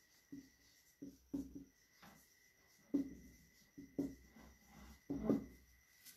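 Marker pen writing on a whiteboard: a series of short, irregular strokes with small pauses between them as the words are written out.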